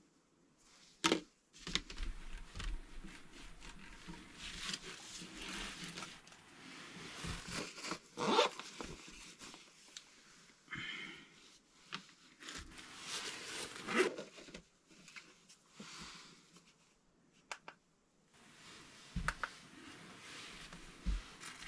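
Plastic bags rustling and crinkling, with scrapes and a few louder tearing rustles, as meat is handled and packed into bags and a sack. The sounds come in irregular bursts, loudest about a second in, near the middle and again about two-thirds through.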